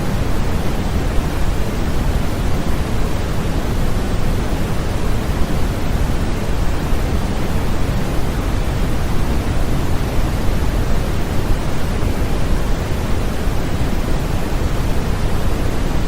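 Continuous white noise of the kind played as a baby sleep aid, steady and unchanging, with more weight in the low end than in the highs.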